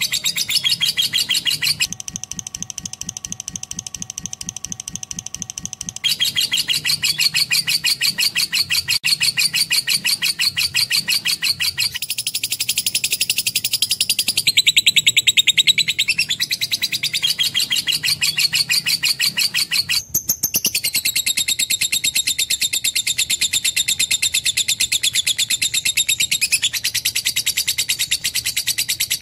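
Lovebird singing a long, unbroken run of rapid high chirps, its pattern shifting abruptly several times.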